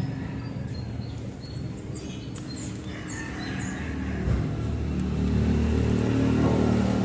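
A motor vehicle's engine running with a steady low hum that grows louder in the second half, with a few short bird chirps about two to three seconds in.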